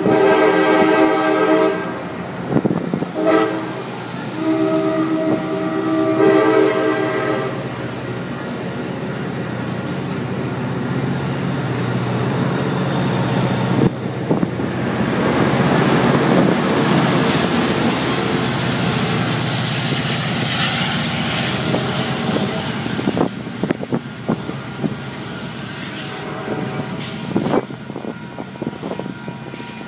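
Amtrak Pacific Surfliner train departing: its horn sounds a long blast, a short one and another long blast in the first seven seconds. Then the bilevel cars roll past with rising wheel-on-rail noise, loudest about halfway through, fading with clicking wheels as the last car goes by.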